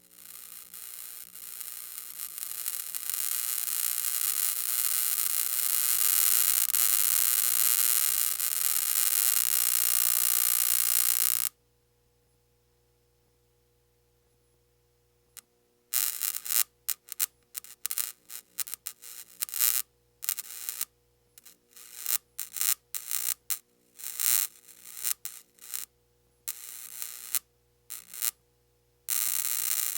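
Electric static crackle: a continuous buzzing hiss that swells over the first few seconds and cuts off suddenly about eleven seconds in. After a few seconds of quiet it comes back as irregular sputtering bursts that switch on and off.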